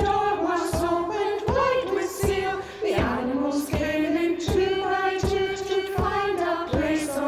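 A hymn sung by voices in slow, steady, held notes, one syllable after another in a regular rhythm.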